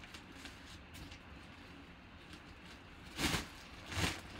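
Black nylon drawstring bag rustling as it is worked and pulled down off a full-size football helmet, with two short, louder swishes of the fabric near the end.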